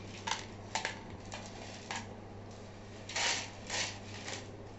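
Spoon and hand sliding food across a metal plate, with roasted peanuts, chopped dates and coconut pushed off into a plastic bowl. A few light clicks come first, then two longer scrapes about three seconds in, over a steady low hum.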